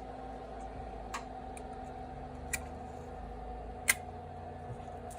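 Three light clicks about a second and a half apart, the last the sharpest, over a steady low electrical hum: small things being handled on a workbench.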